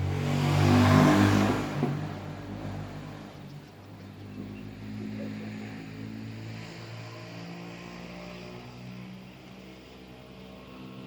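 A motor vehicle engine passing close by, loudest about a second in and fading within a couple of seconds, followed by a quieter steady engine hum.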